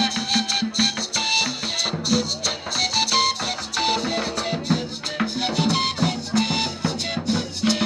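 A live cumbia band playing. A shaken rattle keeps a steady even beat over drums, under a melody of short held notes.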